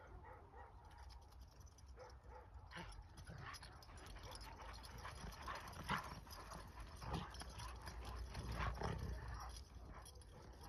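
Akbash dogs playing and wrestling, with scattered short dog sounds that are busiest from about three to nine seconds in, over a low steady rumble.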